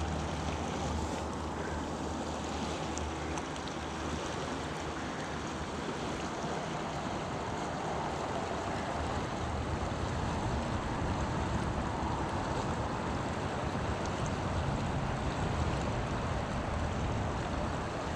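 Fast-flowing river riffle rushing steadily over rocks, with a low rumble underneath.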